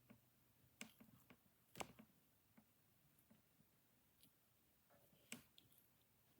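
Faint clicks and taps from scissors and fingers working on a foam squishy: a few sharp, separate clicks, the loudest about two seconds in and another about five seconds in.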